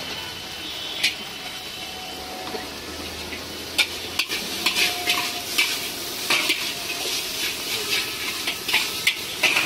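Noodles frying with a steady sizzle in a large black iron wok, and a metal spatula scraping and clanking against the wok as they are stirred and tossed, about two strokes a second from about four seconds in.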